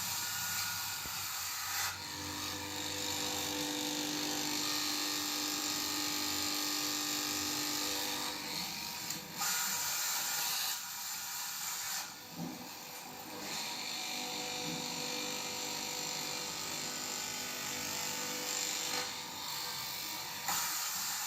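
Electric fabric cutting machine running as it cuts through cloth, a steady high motor-and-blade noise that changes briefly a few times.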